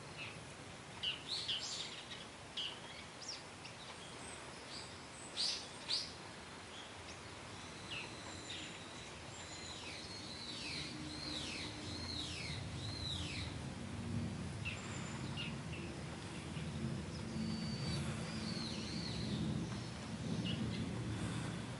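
Small birds chirping, with a quick run of descending whistled notes in the middle, over the soft steady hiss of light rain. A low rumble builds in the second half.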